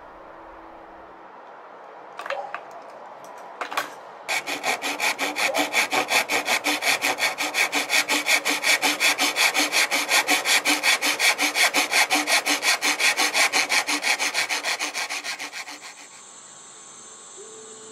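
Thin flush-cut hand saw trimming a protruding wooden dowel flush with a pine board, in quick, even back-and-forth strokes, several a second. It starts about four seconds in after two brief scrapes as the blade is set, and fades out near the end.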